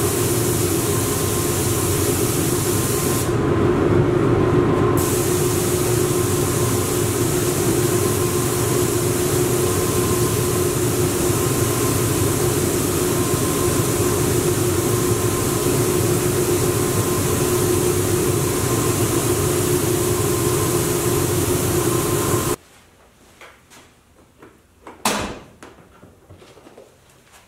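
A machine runs loud and steady with a hiss and a low hum, then cuts off abruptly; a sharp click and a few light ticks follow.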